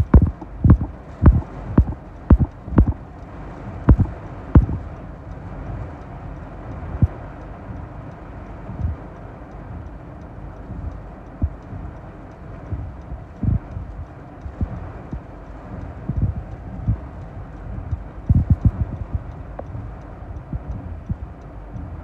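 Torrential rain and strong wind beating on a car, heard from inside the cabin: a steady rush broken by irregular heavy thumps. The thumps come in a burst over the first few seconds and again a little before the end.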